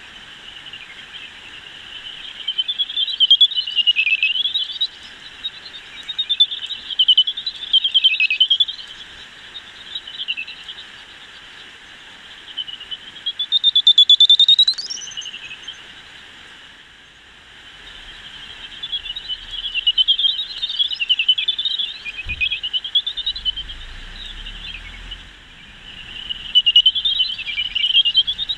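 Greater horseshoe bats' echolocation calls made audible by a bat detector. Bursts of fast, warbling chirps come with each bat that flies past, about five times, over the detector's steady hiss. The loudest is a longer rising tone about halfway through.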